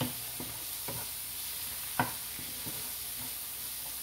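Swiss red chard sizzling steadily in a frying pan, nearly cooked, while a wooden spatula stirs and scrapes it, knocking against the pan several times, most sharply about halfway through.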